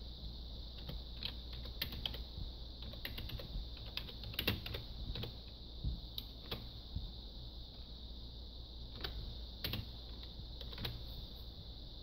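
Typing on an eMachines PC keyboard: irregular key clicks, thickest about four to six seconds in, thinning out near the end. A steady high hiss runs underneath.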